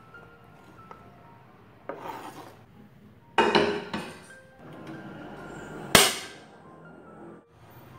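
Kitchen clatter twice in the first half, then about six seconds in a single sharp click as the knob of a Miyako gas stove is turned, with a brief rush as the burner lights. Soft background music runs under it.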